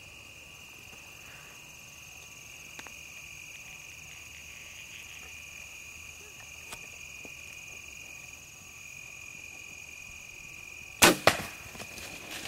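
A Mathews Z7 Extreme compound bow is shot: a loud sharp crack about eleven seconds in, with a second crack right after it. Insects trill steadily and high-pitched underneath throughout.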